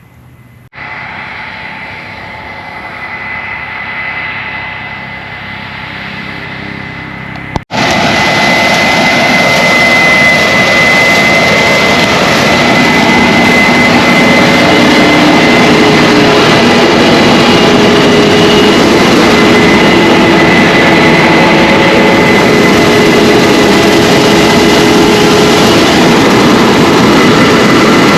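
Heavy harvest machinery running steadily, a diesel engine drone with a high whine above it. About eight seconds in it cuts suddenly to a much louder, closer run that holds steady.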